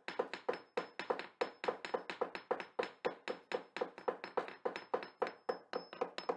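Rapid, even knocking, four or five sharp knocks a second, each with a brief pitched ring.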